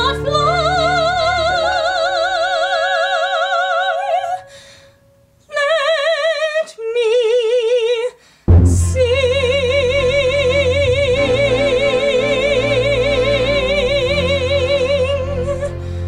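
Solo female soprano singing with accompaniment: a long held note with wide vibrato, a brief pause, two short notes, then a final long held note with vibrato as a fuller accompaniment with deep bass comes in suddenly about eight and a half seconds in.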